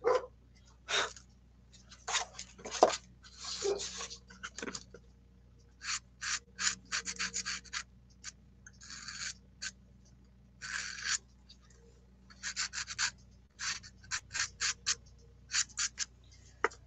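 Pastel stick scratching across paper in short strokes, sometimes several quick strokes in a row, with a few longer rubbing strokes and brief pauses between them.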